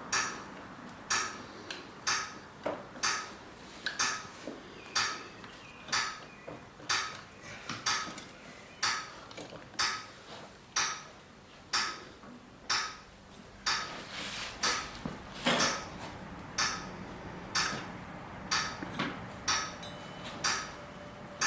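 Light metallic clinks or taps, about one a second, each with a short ringing note.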